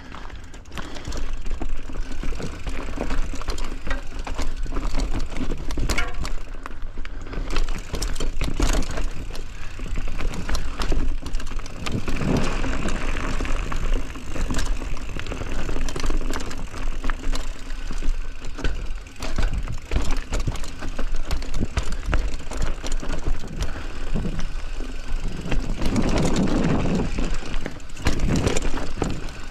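Mountain bike being ridden over a rough trail: tyres running on the dirt, with the bike rattling and clicking over bumps and a steady rumble of wind on the microphone. It gets louder and rougher about twelve seconds in and again near the end.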